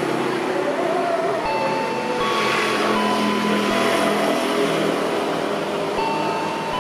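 KRL Commuter Line electric train running slowly round a curve: a steady rumble of wheels on rail, with several high, steady squealing tones from the wheels on the curve that come and go, and a few soft knocks over rail joints.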